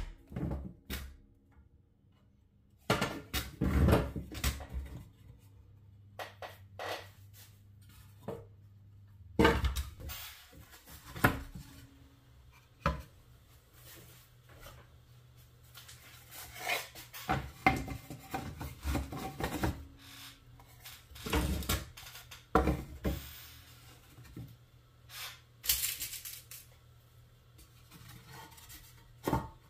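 Irregular knocks and clatters of hard objects being handled and set down, in clusters of a few strikes with short pauses between.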